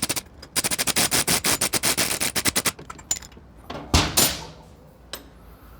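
Socket ratchet clicking rapidly, about ten clicks a second for two seconds, as a bolt is run in, followed about four seconds in by two loud metallic knocks and a lighter clink of tools against metal.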